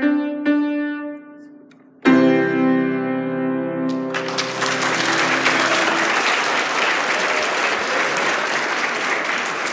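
Grand piano ending a piece: a few single notes stepping down in pitch, a short pause, then a loud final chord that rings and dies away. Audience applause breaks out about four seconds in and continues.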